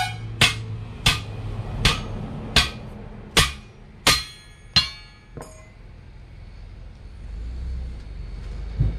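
Hammer striking the steel wheel rim and bead of a 10.00 R20 truck tyre. About eight sharp, ringing metallic blows come roughly every 0.7 s and stop about halfway through, leaving a low rumble that builds near the end.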